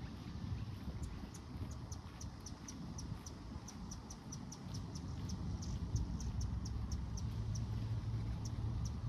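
Outdoor ambience: a steady low rumble, with a regular series of short, high-pitched chirps, several a second, repeating without a break.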